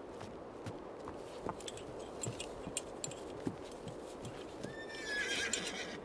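Horses' hooves clopping irregularly on packed ground, with one horse whinnying about five seconds in.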